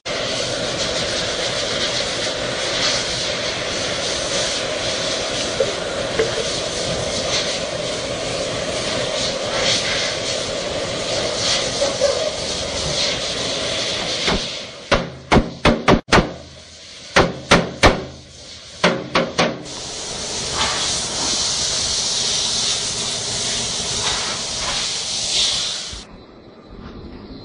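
Oxy-acetylene welding torch flame hissing steadily on a sheet-steel forklift engine cover. About halfway through, the hiss stops for roughly five seconds of a dozen or so sharp, ringing metal knocks: a hammer striking the steel panel. Then the torch hiss returns and stops abruptly near the end.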